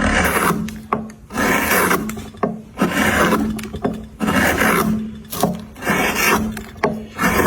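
A coarse hand tool scraping across wood in repeated strokes, about six of them, one every second and a half or so, with short knocks between some strokes.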